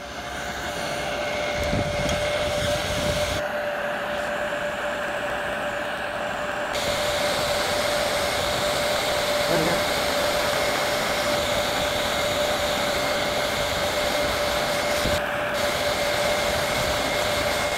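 Electric heat gun running steadily: a blast of air noise with a steady whine from its fan motor.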